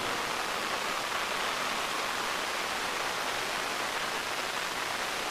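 Steady, even hiss of noise with no separate events in it.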